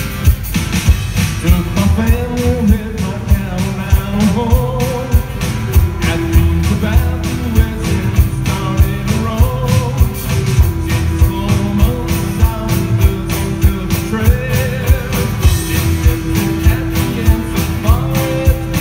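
A live three-piece rock band plays: acoustic and electric guitars over a steady drum-kit beat, with a wavering melody line on top.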